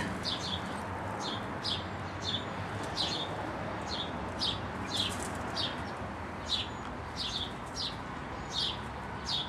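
American robin giving a steady series of sharp, short, downward-sliding alarm calls, about two a second. It is an adult robin scolding a person close to its nest.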